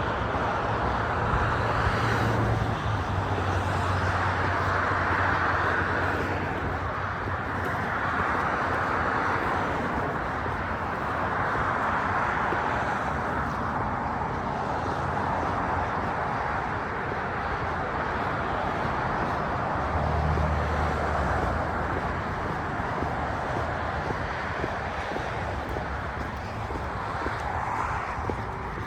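Heavy breathing close to the microphone while walking, a slow swell of breath every three or four seconds, over steady outdoor traffic noise; a low engine hum from a passing vehicle comes in at the start and again about two-thirds of the way through.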